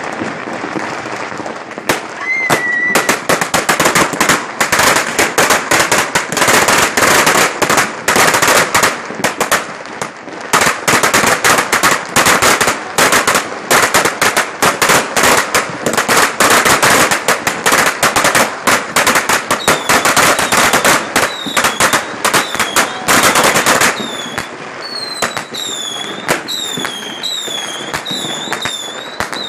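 A long string of firecrackers going off in a rapid, dense crackle of sharp bangs for about twenty seconds, thinning out near the end. Over the last part, short falling whistles from fireworks repeat one after another.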